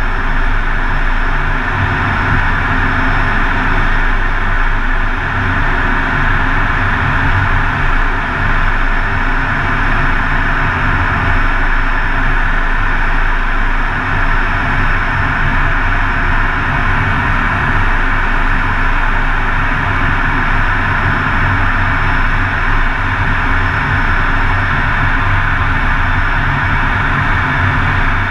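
Steady cockpit noise of an F-16 Fighting Falcon in flight, heard inside the cockpit: a constant low hum under a broad rushing hiss from the jet engine and airflow.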